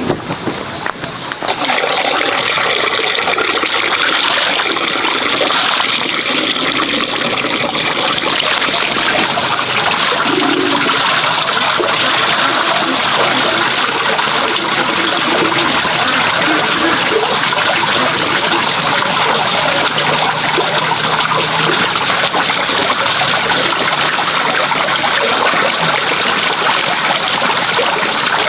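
Steady rush of running water, setting in about a second and a half in and holding an even level.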